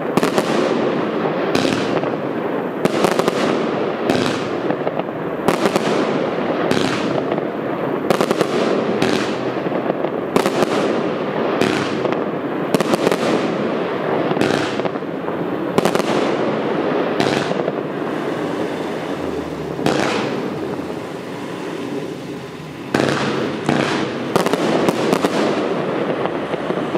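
Evolution Fireworks 'Hamlet' firework cake firing a rapid series of shots, one to two a second, each a sharp bang, with a continuous hiss between them. The shots thin out about two-thirds of the way through, then a quick final volley follows.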